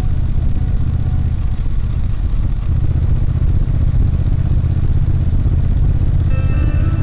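Honda Rebel 1100's parallel-twin engine running at a steady speed with a low, even rumble. Music comes in near the end.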